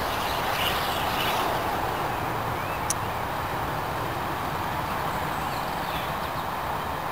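Rolling noise of a steam-hauled train's coaches running away into the distance, a steady rumble that slowly fades.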